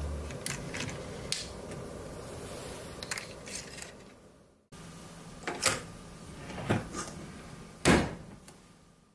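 Light clicks and knocks of objects being handled, spaced a second or more apart, with the loudest knock near the end. The sound cuts out briefly about halfway through.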